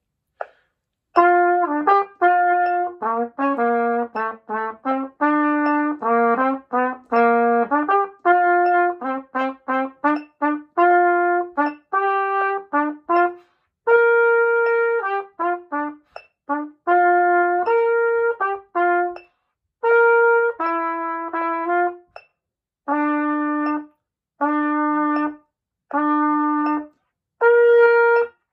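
Solo trumpet playing a written part at a practice tempo of half note = 80: quick runs of short notes during the first half, then longer held notes separated by rests. The playing starts about a second in.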